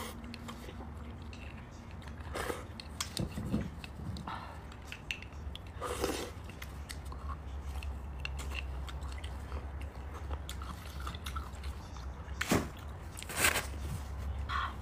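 Close-miked eating sounds of beef bone marrow: soft marrow scooped out of a cut bone with a small spoon and sucked from the bone's end, with wet chewing and scattered small clicks over a steady low hum. A few louder sharp sounds come near the end.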